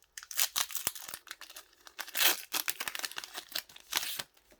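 Foil wrapper of a Pokémon booster pack being torn open and handled, crinkling and crackling in irregular bursts, loudest about two seconds in.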